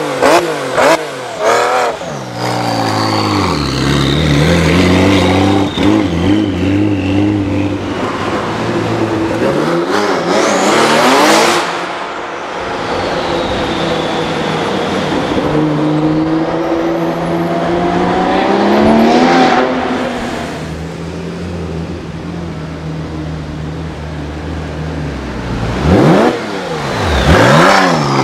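Twin-turbo flat-six of a Gemballa Avalanche GTR 750 EVO-R, a tuned Porsche 997 GT2, revving in sharp quick blips. It then accelerates hard several times, each time with a rising pitch, with a steadier lower engine note in between. More sharp revs come near the end as the car pulls away.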